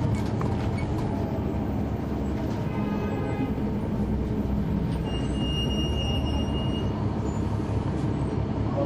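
Rear interior of a 2004 Neoplan AN459 articulated transit bus, its Caterpillar C9 ACERT inline-six diesel running with a steady low rumble. A thin high squeal sounds for about two seconds around the middle.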